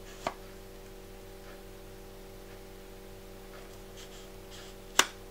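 Handling of a Sigma 70-300mm zoom lens: a small click just after the start and one sharp click about five seconds in, over a steady low electrical hum.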